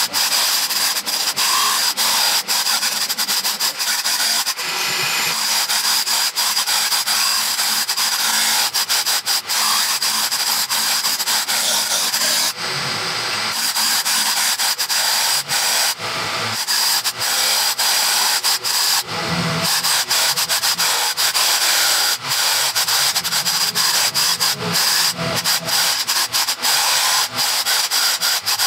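Makita electric jack hammer, mounted on a wheeled cart and fitted with a wide scraper blade, hammering rapidly as it chisels old flooring and adhesive off a concrete subfloor, with a few short breaks.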